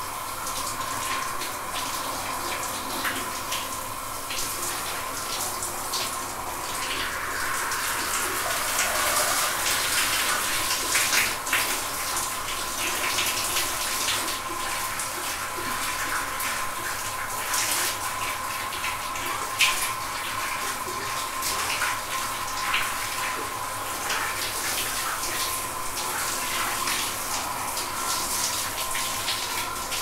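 Shower running: a steady spray of water, with many small splashes and spatters breaking through and a faint steady tone under it.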